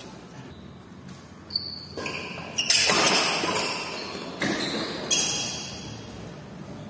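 Badminton rackets striking a shuttlecock during a rally: several sharp hits, ringing on in the reverberation of a large hall.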